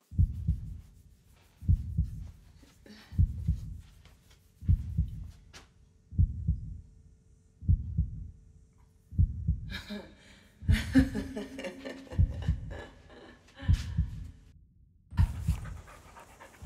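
A slow heartbeat sound effect: low double thuds, lub-dub, about one every second and a half. From about halfway through, fainter higher sounds come in over the beat for a few seconds.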